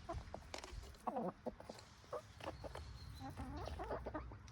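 Hens clucking, a series of short calls, with scattered light clicks and taps among them.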